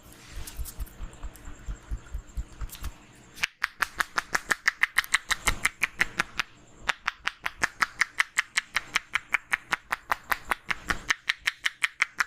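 Rapid rhythmic percussive head massage by hand: for about three seconds, soft dull thumps about five a second, then sharp clapping slaps of the hands on the head at about five a second, with two short breaks.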